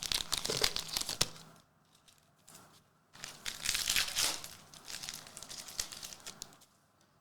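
Crinkling and rustling of trading-card pack wrappers and cards being handled, with sharp crackles. It comes in two spells with a short quiet gap between.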